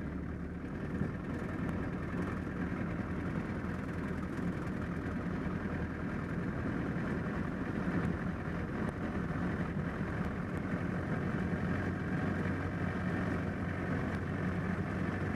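The air-cooled flat-four engine of a 1946 Piper J-3 Cub running steadily, heard from inside the cabin as a continuous low drone.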